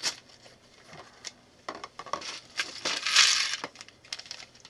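Small plastic building-brick parts clattering and rattling as they are tipped out of plastic bags into clear plastic bowls, with scattered clicks and a louder burst of clatter a little after three seconds in. The thin parts bags give only a little crinkle.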